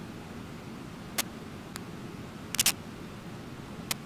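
Brooks Falls waterfall giving a steady rush of falling water. Sharp clicks cut through it: one about a second in, a close pair a little after halfway and another near the end.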